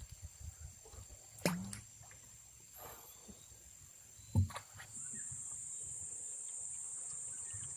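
Steady high-pitched drone of insects, much louder from about five seconds in, with two sharp knocks about three seconds apart before that.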